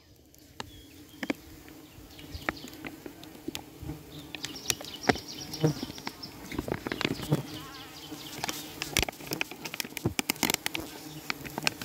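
Trigona stingless bees buzzing in a steady hum at their opened log hive, with many sharp clicks and taps that come thicker after about eight seconds.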